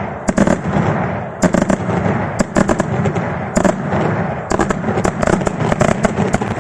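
Daytime aerial fireworks display: rapid volleys of sharp, loud shell reports, several a second, running into one another over a continuous rumble.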